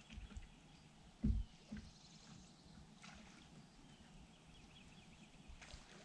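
Quiet open-water ambience with faint, high chirping calls, broken by a dull thump about a second in and a lighter one just after.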